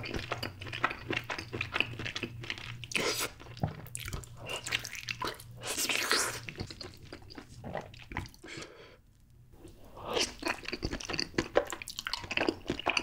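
Close-miked eating sounds: a whole block of Spam coated in nacho cheese sauce bitten into and chewed wetly, with many short sharp bites and smacks and a brief lull partway through. Near the end, spicy fire noodles are taken into the mouth and chewed.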